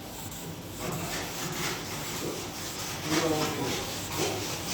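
Sandpaper rubbed by hand over a car's paintwork to take out scratches, in repeated back-and-forth strokes that start about a second in.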